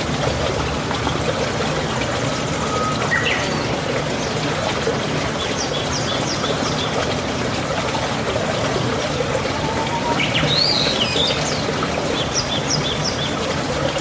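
Small birds chirping and calling over a steady rush of running water. There is a rising call about three seconds in, then quick runs of high chirps around the middle and again near the end.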